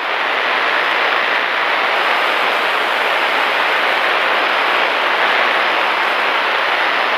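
Steady static hiss on the Cessna's radio and intercom audio, an even rushing noise with no voice on the channel.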